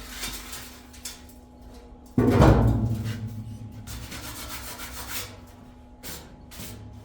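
Rubbing and scraping from hands-on work, with one sudden heavy thump about two seconds in that booms on briefly before fading; a faint steady hum sits underneath.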